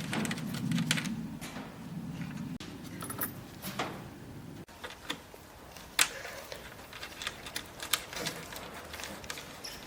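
Irregular clicks and light knocks, like small hard objects being handled, over a low hum that stops about halfway through.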